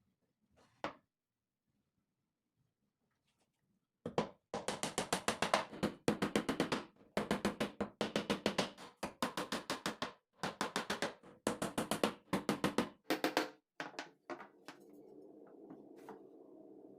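A fast run of sharp, rhythmic strokes, several a second with short pauses between runs, followed about three-quarters of the way in by a small electric motor starting and running steadily.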